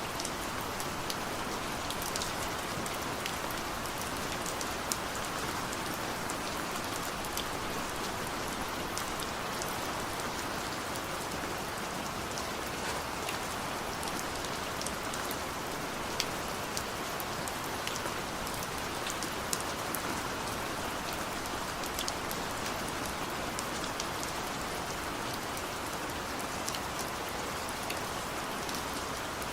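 Heavy rain falling steadily, a constant rushing hiss with scattered sharp drop ticks.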